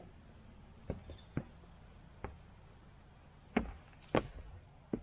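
Footsteps of Red Wing Iron Ranger leather work boots on bare boulders: about seven irregular, short knocks as the walker steps from rock to rock, the loudest two past the middle.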